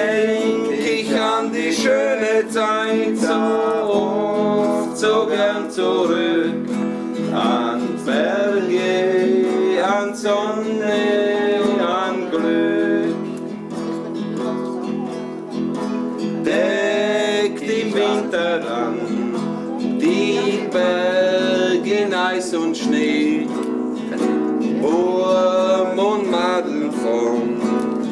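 Folk tune on a nylon-string classical guitar, picked and strummed, with a gliding melody line carried over the chords.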